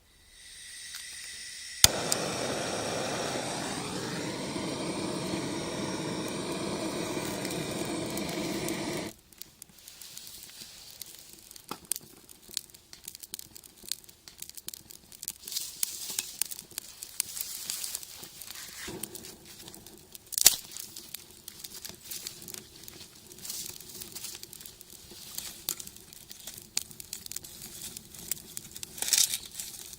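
A sharp click, then a loud steady hiss that cuts off abruptly after about seven seconds. After it comes irregular crackling and crinkling from a wood fire being started in a rocket stove.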